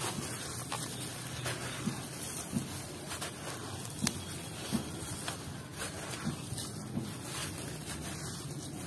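Hands squeezing and crumbling a wet, gritty block in a plastic basin of muddy water: a steady wet squelching and sloshing with irregular sharp crackles as pieces break off and fall in.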